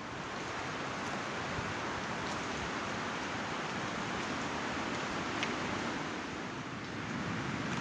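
Strong wind blowing: a steady rushing hiss that eases briefly near the end, then picks up again.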